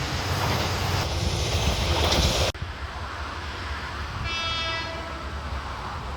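Loud rushing noise that cuts off suddenly about two and a half seconds in. A little later a train horn sounds once, briefly.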